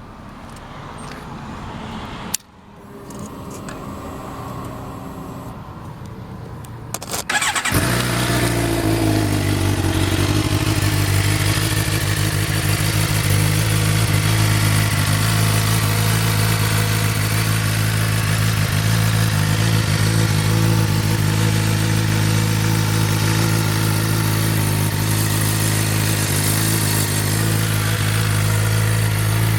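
Suzuki GSX-R750 inline-four sport bike engine starting about seven seconds in, its revs settling briefly. It then idles steadily through a Two Brothers carbon-fibre aftermarket exhaust.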